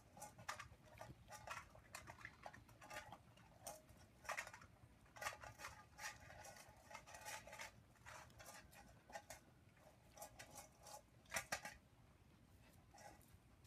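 Shiloh Shepherd dogs eating chicken from bowls: faint, irregular chewing, licking and bowl clicks, with a couple of louder clicks about 11 seconds in.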